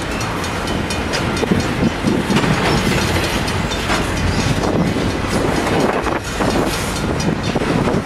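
Double-stack intermodal well cars rolling past at close range: a steady rumble of steel wheels on rail with irregular sharp clacks from the wheelsets.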